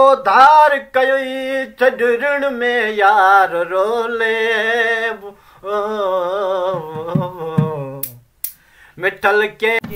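A man singing solo without accompaniment, in long held notes that waver and bend in pitch. The singing breaks off about eight seconds in.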